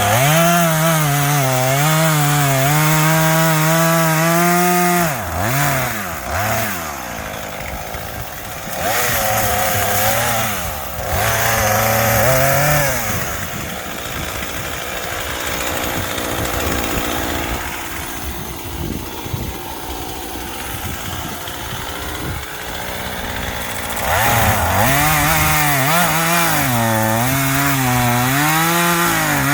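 Small gas chainsaw cutting up felled logs. It runs at full throttle for about five seconds and then drops back. It is revved in short bursts, idles for roughly ten seconds, and is back at full throttle near the end.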